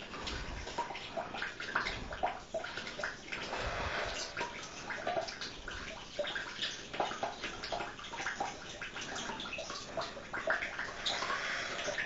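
Water trickling from a bathtub tap into the tub, a steady splashing with many small irregular spatters.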